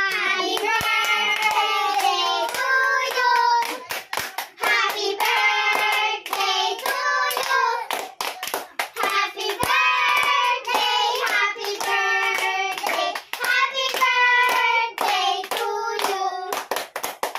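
A group of young children singing a song together and clapping their hands along in time.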